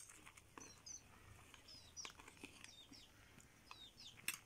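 Faint chirping of small birds: short, high, falling notes repeated about every half second. A couple of sharp clicks come near the start and near the end.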